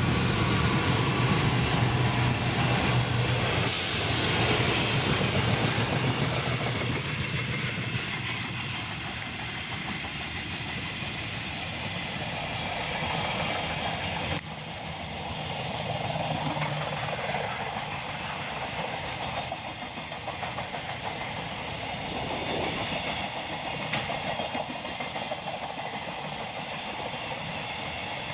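Electric-locomotive-hauled freight train passing close by, a steady rush of wheels running on the rails. It is loudest, with a low hum, for the first few seconds, then settles into a slightly quieter rolling of the wagons.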